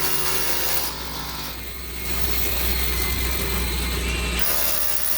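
Big power drill boring holes for foundation repair, running steadily with a short dip in level about a second in.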